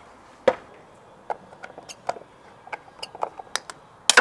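A series of irregular sharp knocks and taps, a loud one about half a second in and a quick cluster of louder knocks at the very end.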